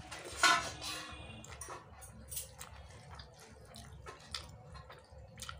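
Close-up eating sounds: a wet mouth smack about half a second in as a handful of rice goes into the mouth, then soft chewing and scattered small clicks and squelches as fingers mix rice on a china plate.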